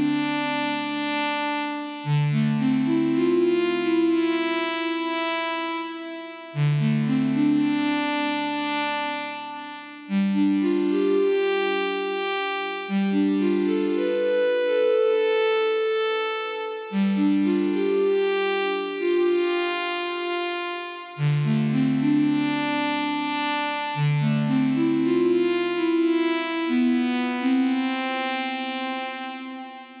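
The V-80, IK Multimedia Syntronik's software emulation of the Yamaha CS-80, plays its 'Oozing Pulse Width' patch as a slow sequence of chords. Each phrase starts on a low note, with held notes stacking in one after another above it, and a new phrase begins every three to four seconds. It fades out near the end.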